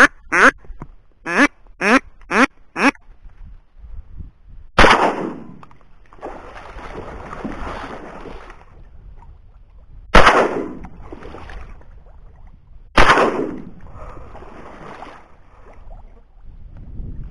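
A duck quacks about six times in a falling run. Then a shotgun fires three times, about 5, 10 and 13 seconds in: shots at a northern shoveler, the first knocking it down and the others finishing it on the water.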